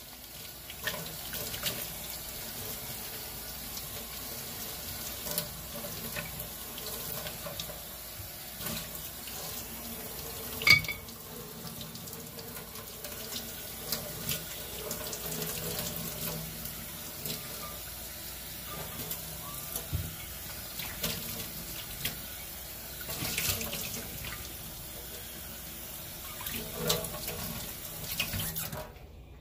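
Water running from a tap while a stainless steel skillet is rinsed and washed at the sink, with occasional clinks and knocks of the pan, one sharper knock about a third of the way in. The water stops abruptly near the end.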